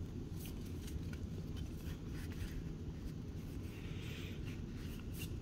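Faint rustling and light clicks of Pokémon trading cards being handled and sorted on a table, over a steady low background hum.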